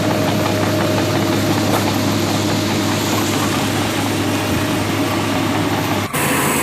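Toy excavator's small motor and gears whirring steadily while pulling a sand truck on a tow rope; the sound breaks off abruptly near the end.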